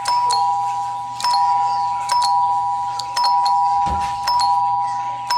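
Two-tone doorbell chime ringing ding-dong again and again, about once a second, each press striking a higher and then a lower tone that ring on. This is the newly wired doorbell being tested and working. A short low thump comes about four seconds in.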